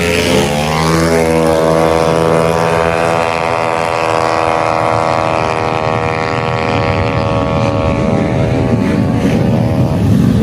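Tuned 155cc automatic-scooter engine on a drag run at full throttle. Its note climbs over the first couple of seconds, then holds nearly steady at high revs, and fades near the end.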